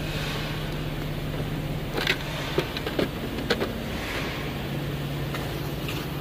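A steady low hum, with a handful of short sharp clicks and knocks between about two and three and a half seconds in.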